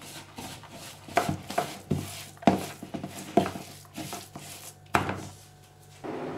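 Wooden spoon mashing and stirring butter into powdered sugar in a bowl, with irregular knocks and scrapes of the spoon against the bowl. Near the end it switches to a steady hiss of a wire whisk stirring the hot cocoa mixture in a pot.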